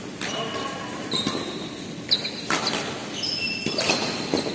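Badminton doubles rally: several sharp racket strikes on the shuttlecock, mostly in the second half, with sneakers squeaking briefly on the court floor in between.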